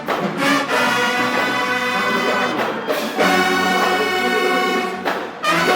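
Brass-heavy orchestral music, trumpets and trombones playing long held chords, with a new chord coming in about three seconds in.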